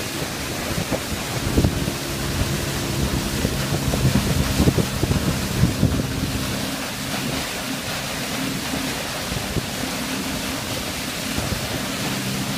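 A 50 hp outboard motor running steadily at speed while towing a wakeboarder, with wind buffeting the microphone and water rushing past the hull.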